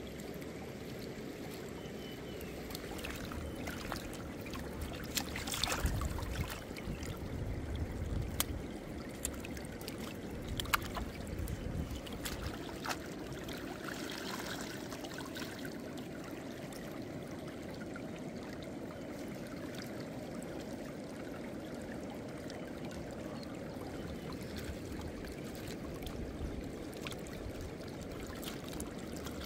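Shallow river running steadily over stones. In the middle of the stretch come bouts of splashing and sloshing as food is rinsed by hand in a woven basket in the water.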